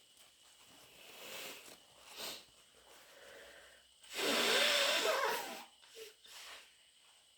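A person with a wet head cold sniffling twice, then blowing their nose hard for about a second and a half with a wavering, wet honk, then sniffling twice more.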